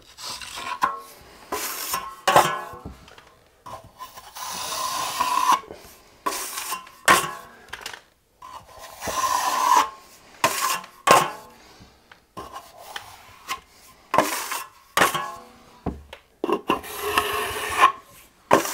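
Steel drywall trowel scraping a thin skim coat of topping mud across a wall, a dozen or more rasping strokes with short pauses between, many with a faint ringing note from the blade.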